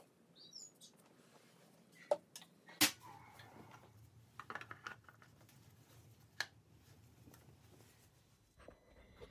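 Quiet handling sounds from hands working at the engine's oil filler with a rag: a few sharp clicks, the loudest about three seconds in, and light knocks and rustles. A bird chirps briefly near the start.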